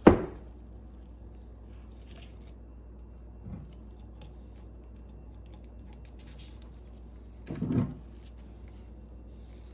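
Trolling motor armatures and the steel motor housing handled on a workbench: a sharp knock as a part is set down at the start, a faint tap about three and a half seconds in, and a duller thud about eight seconds in as the housing is picked up. A steady low hum runs underneath.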